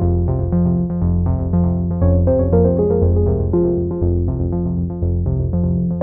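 Instrumental background music: synthesizer and keyboard notes over a bass line that changes note about every half second.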